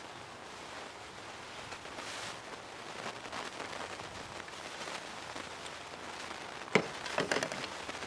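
Handling noise from the parts of a PS90 carbine during reassembly: faint rustling with small clicks. One sharp click comes near seven seconds in, followed by a few lighter clicks.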